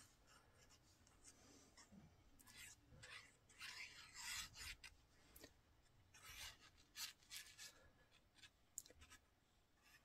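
Faint scratching of a glue pen's tip drawn across cardstock in short, irregular strokes.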